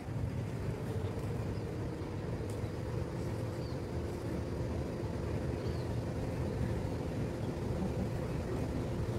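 Steady low rumble of outdoor background noise with a faint steady hum, and two faint short high chirps around the middle.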